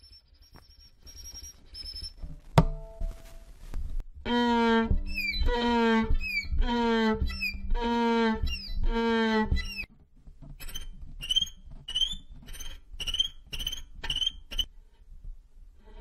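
Violin imitating animals: thin high squeaks for a mouse, a single knock, then about five bowed hee-haw strokes, one a second, each sliding down in pitch, imitating a braying donkey. Near the end comes a run of short high chirps.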